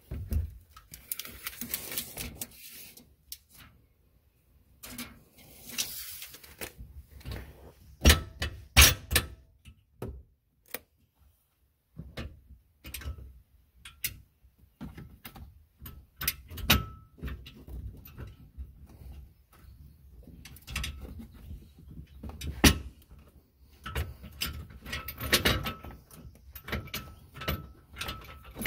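Scattered knocks, clicks and rustling from hands working a steel grill guard mounting bracket against the vehicle's frame. The loudest are a few sharp knocks about a third of the way in and another about three quarters through.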